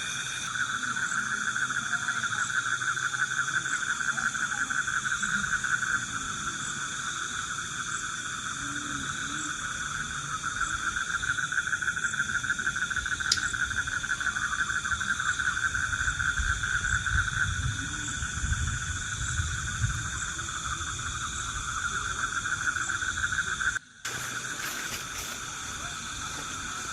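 A chorus of insects and frogs: several steady trills at different pitches overlap, and the strongest waxes and wanes. The sound briefly cuts out about three seconds before the end.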